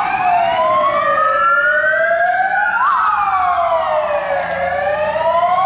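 Sirens of two fire vehicles, a GBA fire engine and a light bus, wailing together on an emergency departure. Each rises and falls over about three seconds, one climbing while the other drops.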